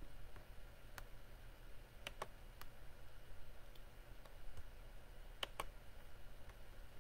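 Computer mouse clicking about six times, including a quick pair about two seconds in and another about five and a half seconds in, over a low steady hum.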